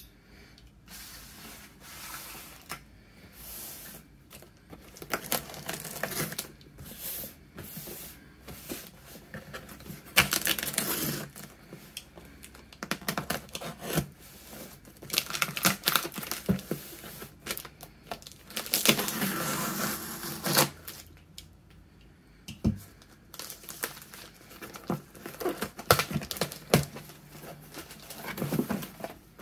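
Packing tape being cut and torn from a cardboard shipping box, in irregular bursts of ripping, scraping and rustling, with many sharp clicks and taps of cardboard and hands on the box.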